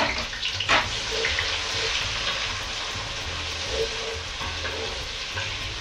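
Freshly added chopped onions sizzling steadily in hot oil in a metal pot while being stirred with a wooden spoon, with two sharp knocks in the first second.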